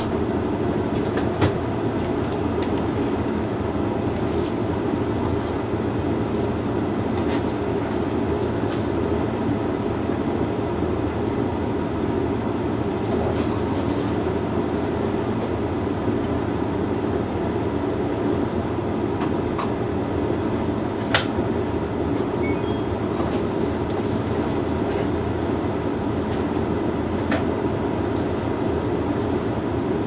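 Hoover Link X Care HLX C10DRGR condenser tumble dryer running a Rapid 45 drying cycle: a steady rumble of the turning drum and fan, with occasional sharp clicks.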